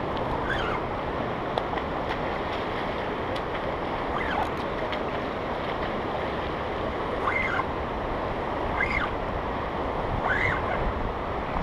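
Steady rushing of fast-flowing river water, with wind on the microphone. A few short high chirps sound at intervals over it.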